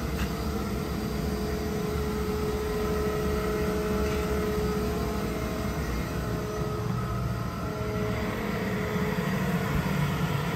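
Kaeser ASD 50 T SFC inverter-driven rotary screw air compressor running: a steady low hum with a thin steady whine over it.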